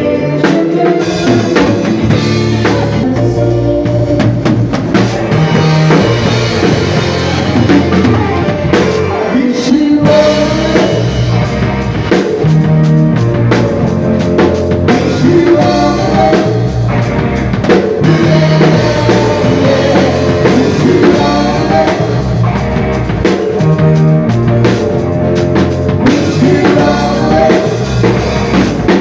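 Live band playing, heard from beside the drum kit: steady drumming with bass drum and cymbals, and singing over it.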